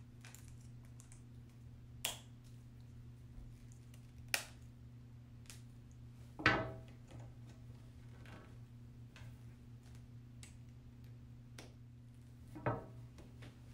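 A few sharp clicks and knocks of plastic pen parts being handled and pressed together, the loudest about six and a half seconds in, over a steady low hum.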